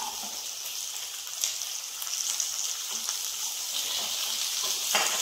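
Sliced shallots and green chillies sizzling in hot coconut oil in a pan as they are stirred with a wooden spatula: a steady high hiss with scattered crackles. It grows a little louder from about two seconds in.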